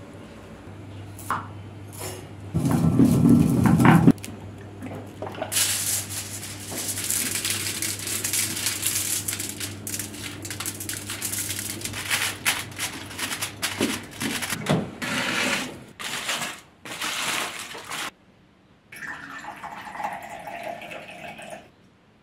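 Aluminium foil crinkling and crackling as it is folded and pressed over a roasting tray, with many sharp crackles over about twelve seconds. Near the start comes a loud low rumble of about a second and a half, and near the end a steadier sound for about two seconds.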